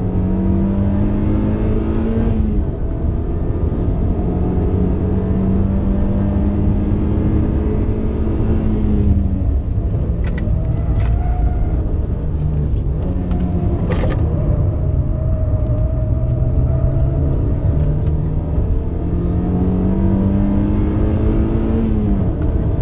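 2006 Mazda MX-5 NC's 2.0-litre four-cylinder engine running near full throttle at around 5,500 rpm through a Goodwin Racing Street single-exhaust muffler, heard from inside the cabin. The note climbs slowly and drops sharply as the throttle comes off, about two and a half seconds in and again about nine seconds in, then builds once more and drops near the end. A few brief sharp sounds come in the middle.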